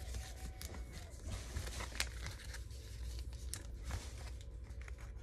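Faint rustling and crinkling of Pokémon trading cards being handled and slipped into place, with scattered light clicks and one sharper tick about two seconds in.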